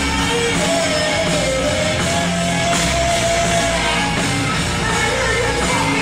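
Live rock band playing loudly, heard from within the crowd: a sung vocal line over electric guitar and drums.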